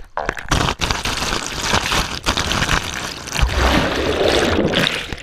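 Pool water splashing and sloshing right against a GoPro camera held at the water's surface, with many short sharp splashes and knocks. Near the end the sound turns to a heavier churning gurgle as the camera dips under the water.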